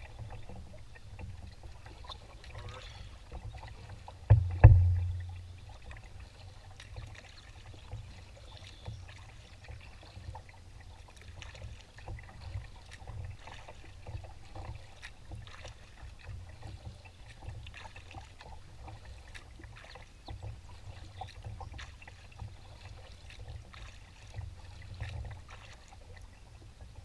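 Old Town Next canoe being paddled: paddle strokes dipping and splashing with small knocks, over a steady low wind rumble on the microphone. A single loud thump about four and a half seconds in.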